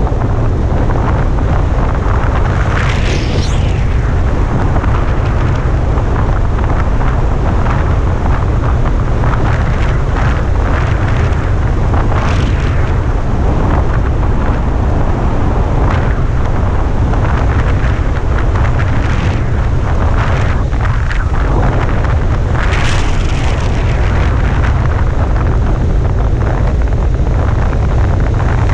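Loud, steady wind rushing over a helmet camera's microphone while flying under an open parachute canopy, with a heavy low rumble and a few brief louder gusts.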